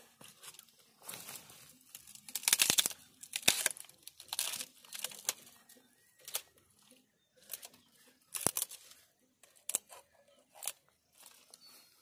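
Dry brush being kicked and broken apart by hand: twigs and branches snap and crunch, and leaves rustle, in an irregular run of sharp cracks. The loudest cracks come a few seconds in.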